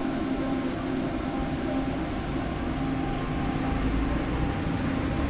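A pair of Kurobe Gorge Railway EDV electric locomotives moving along the platform: a steady electric hum over a low rumble.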